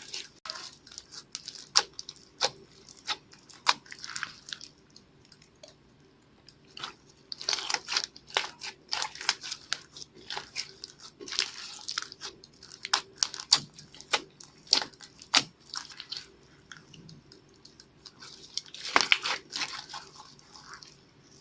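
Slime being squeezed and worked by hand, giving sharp sticky clicks and crackling pops in irregular flurries with short quieter pauses.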